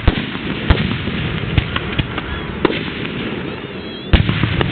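Aerial firework shells bursting in a fireworks display: a string of sharp bangs roughly half a second to a second apart over a steady crackle, with the loudest bang about four seconds in.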